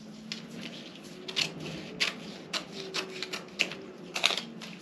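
Scissors cutting out a paper sewing pattern: a run of a dozen or so crisp, irregular snips.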